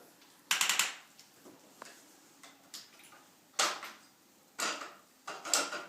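A handful of short, irregular clatters and rustles of things being handled, the loudest about half a second in and again around three and a half, four and a half and five and a half seconds in.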